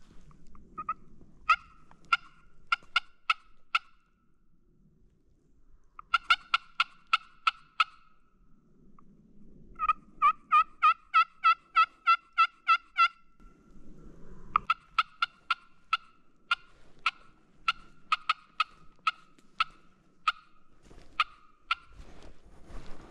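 Turkey yelping: four runs of sharp, evenly spaced notes, the longest and fastest starting about ten seconds in and lasting some three seconds.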